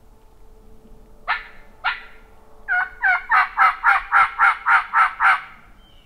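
Turkey call sounding hen yelps: two single yelps, then a run of about ten yelps at roughly four a second.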